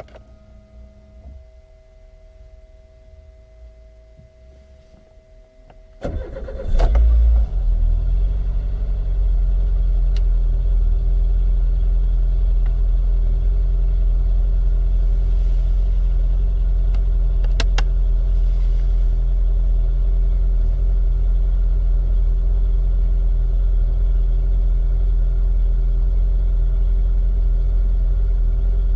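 Peugeot 106 Rallye S1's 1.3-litre four-cylinder engine starting from cold about six seconds in, flaring up briefly, then settling into a steady idle. It is heard through the stock exhaust, which has a small hole in it.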